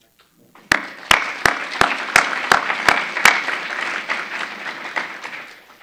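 Audience applause that swells and then fades out near the end. For the first few seconds one person's louder claps sound close to the microphone, about three a second, over the crowd's clapping.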